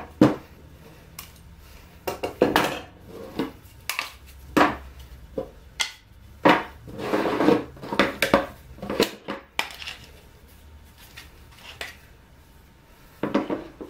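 Metal quick-release bar clamps and wooden jig pieces being handled on a workbench: an irregular run of clacks and knocks as a clamp is released and set down and the hinged wooden arms are moved and folded together. The busiest clatter comes about six to nine seconds in, with a last few knocks near the end.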